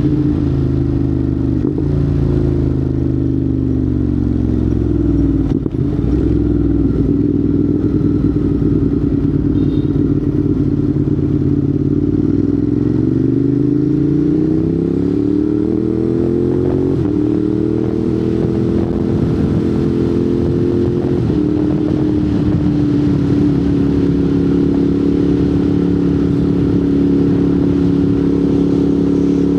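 Ducati Monster 821's 821 cc Testastretta L-twin running through a Termignoni exhaust, heard while riding. The engine note falls off over the first few seconds, holds, then climbs steadily under acceleration for about five seconds. After that it settles into a steady cruise, with a small drop in pitch about two-thirds of the way through.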